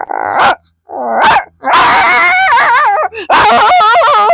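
A young boy imitating two dogs fighting with his voice: a series of loud yelping, whining calls whose pitch wobbles up and down, with short breaks between them.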